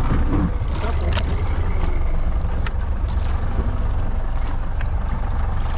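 Steady low rumble of a boat on open water, with wind on the microphone, and a few light clicks and faint squeaks.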